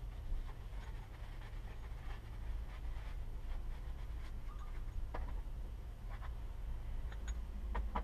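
Cloth rag rubbing along a suspension fork tube as it is wiped clean, with a few light clicks and knocks, over a steady low hum.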